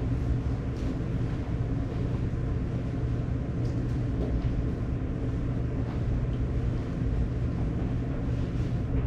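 Steady low hum of room tone, with a few faint ticks scattered through it.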